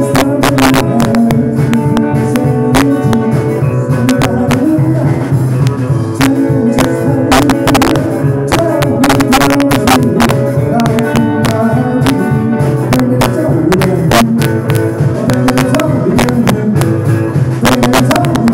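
A live rock'n'roll band playing, with electric guitars, bass and a drum kit keeping a steady beat.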